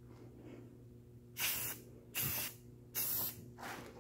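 Aerosol spray-paint can hissing in three short bursts about half a second apart, starting about a second and a half in, as paint is sprayed onto a mini bike rim.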